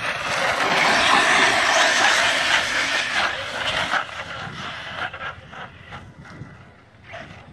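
Team Losi electric RC truck, run on a 3-cell battery, driving fast over dirt: its motor and tyres make a loud rushing noise for the first four seconds, then fade to a fainter, patchier sound.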